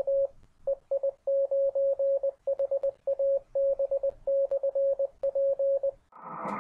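Morse code tone at one steady pitch, keyed in short and long beeps (dots and dashes) at a brisk pace, as sent by a ham radio operator. About a second before the end a fuller, louder sound comes in.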